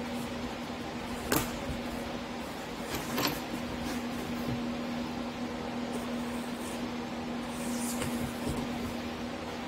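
Large drum fan running with a steady hum, and two sharp knocks about a second and a half and three seconds in.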